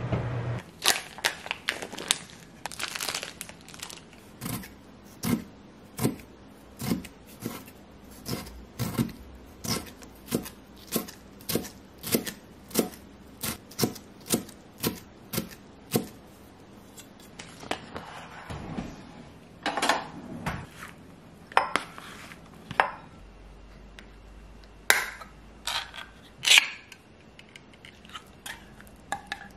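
Kitchen food preparation: a wrapper crinkling, then a long run of steady chopping knocks on a cutting board, about two a second, then dishes and cutlery clattering.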